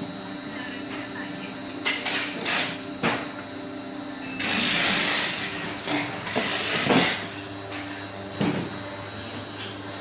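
35-ton plastic injection moulding machine running: a steady mechanical hum with a series of sharp knocks and clanks and a hiss of about a second near the middle.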